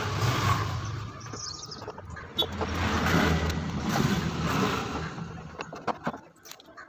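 A motor vehicle's engine rumbling past: it swells to its loudest a few seconds in and fades away about six seconds in. A few faint bird chirps come through.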